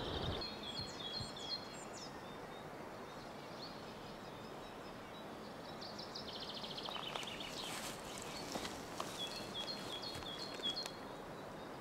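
A small songbird singing three short phrases of quick, repeated high notes, one ending in a fast trill, over a faint steady outdoor hiss.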